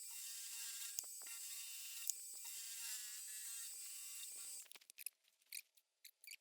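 Milling machine motor running with a steady high whine, then shutting off about four and a half seconds in, followed by a few light clicks.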